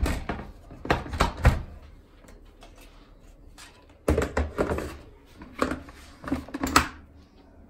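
Clatter and knocks of a SilverCrest food-processor kitchen robot being handled. A few knocks come in the first second and a half; then, from about four seconds in, its plastic lid is set onto the stainless steel bowl and pressed down to close, a series of sharp knocks ending in a click.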